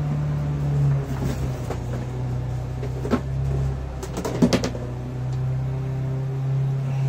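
Metal engine parts being handled and knocked together: one knock about three seconds in, then a quick run of clinks just after four seconds. A steady low hum runs underneath.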